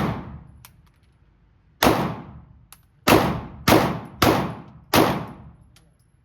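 Gunshots from a firearm being fired at a shooting range: one shot about two seconds in, then four more in quick succession about two-thirds of a second apart, each sharp crack trailing off.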